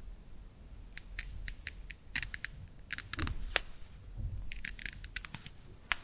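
Velcro between the two halves of a green wooden toy vegetable being peeled apart, a series of crisp crackling ticks that start about a second in and come in uneven clusters.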